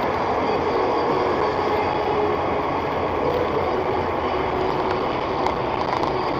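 Steady road noise inside a moving car's cabin, picked up by a dashcam microphone.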